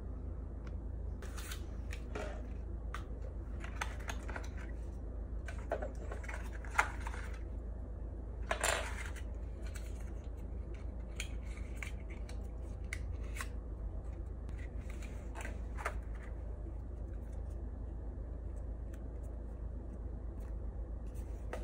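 Hands handling and opening the cardboard-and-plastic packaging of a pair of wired earphones: scattered crinkles, clicks and scrapes, the loudest a longer rustle about nine seconds in, over a steady low hum.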